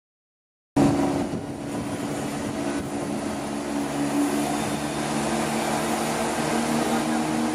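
Class 170 Turbostar diesel multiple unit drawing into the platform, its diesel engines giving a steady drone. The sound cuts in abruptly just under a second in, after a brief silence.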